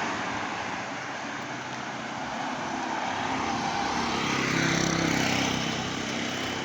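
An engine passing, its hum swelling to a peak about four to five seconds in and then easing, over a steady rush of wind or road noise.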